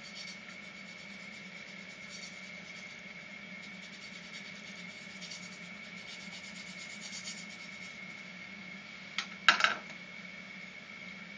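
Faint, uneven rasping of a tool scraping the inside of a shakuhachi's bamboo bore round, over a steady high whine and hum. Two sharp knocks come about nine seconds in.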